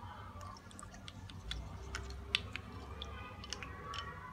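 A spoon stirring baking soda and water in a bowl, clicking against the sides in faint, irregular light ticks.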